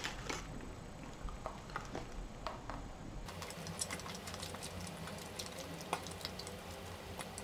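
Faint clicks as chocolates are lifted out of a plastic box tray, then chewing of a mouthful of chocolate, heard as scattered faint mouth clicks and crackles.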